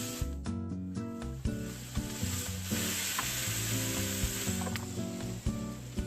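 Turkey tenderloin sizzling on a hot stovetop griddle, a steady frying hiss, with background music playing over it.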